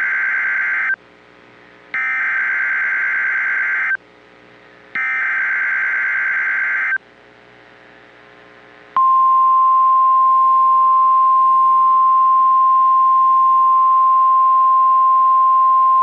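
NOAA Weather Radio Emergency Alert System tones. The end of one SAME digital header burst comes first, then two more screechy data bursts about a second apart. About nine seconds in, the steady 1050 Hz warning alarm tone starts and holds, alerting receivers to a severe thunderstorm watch about to be read.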